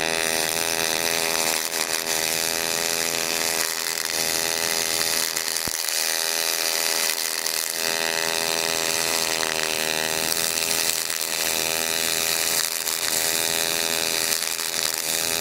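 Aluminum pulse MIG welding arc running on thin aluminum coupons during a vertical-up weld: a steady, even buzz with a fixed pitch.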